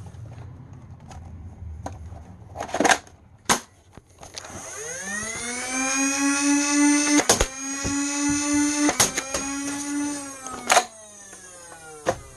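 Flywheel motors of a battery-powered Nerf Fortnite IR blaster spin up with a rising whine about four and a half seconds in, hold a steady pitch, then wind down with a falling whine near the end. Three sharp clacks come through the whine as the blaster fires darts, and a couple of sharp clicks come shortly before the spin-up.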